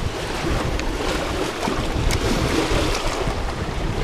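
Choppy water lapping and splashing under a bridge, with wind buffeting the microphone as a steady low rumble.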